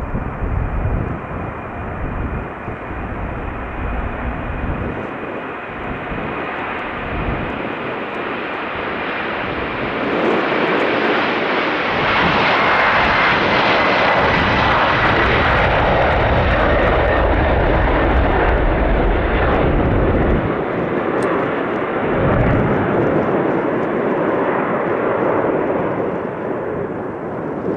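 Boeing 747-400 freighter's four jet engines at takeoff power as it rolls, lifts off and climbs away. The engine noise swells to its loudest as the jet passes closest, with a whine falling in pitch, then slowly eases off.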